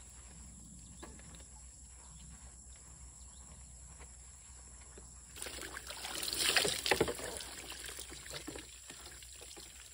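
Water poured over a person's head and long hair, splashing and running off, starting about halfway through, loudest for a second or two, then trickling away. Before it, only faint outdoor background.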